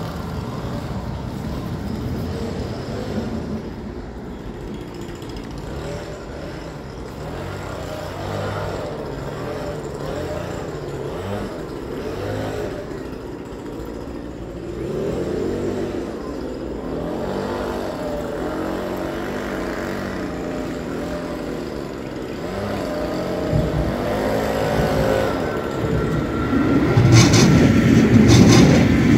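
Steady rumble of vehicles with motor tones rising and falling. Near the end an articulated light-rail train comes up loud and close, its wheels clicking and clattering over the rail joints and points.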